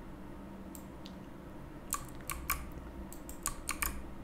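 Computer keyboard keystrokes: a handful of scattered clicks in the second half, over a low steady hum.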